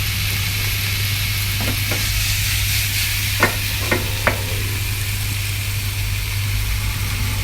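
Broccoli and baby corn sizzling in a frying pan with butter and stock, over a steady low hum. Three sharp clinks come about three and a half to four and a half seconds in.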